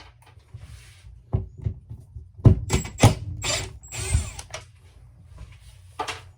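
Hand tools knocking and scraping on a camper roof vent as it is pried loose, a quick run of sharp knocks and scrapes with the loudest about two and a half and three seconds in, and one more knock near the end.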